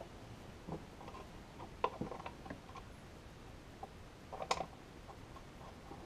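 Scattered light clicks and taps of hands and small bolts working against a plastic engine cover while bolts are fitted on its underside, with a short cluster of clicks about four and a half seconds in.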